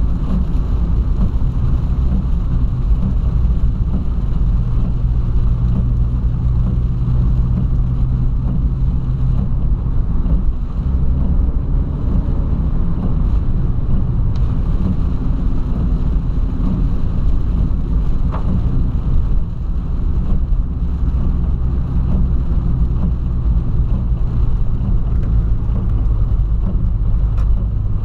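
Inside the cabin of a Volkswagen Polo sedan driving on a rain-soaked road: a steady low engine drone whose note shifts a few times, over a constant rush of tyre and water noise.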